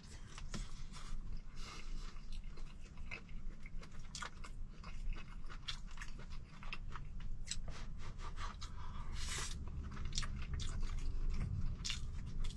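A person chewing and crunching mouthfuls of claypot rice with cured meat, in many short, irregular crunchy bites.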